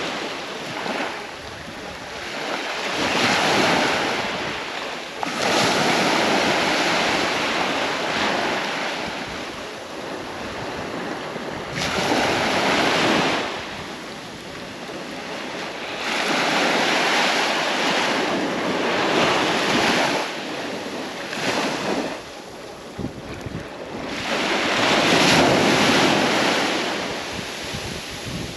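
Sea waves breaking and washing up a sandy beach, swelling and fading in long surges every few seconds.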